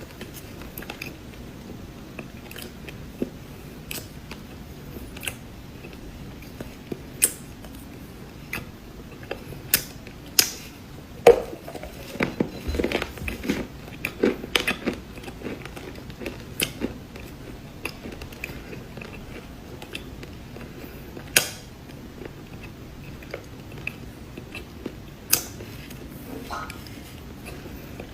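Cookies being bitten and chewed: sharp, crisp crunches come every second or two, with a thicker run of crunching from about eleven to fifteen seconds in.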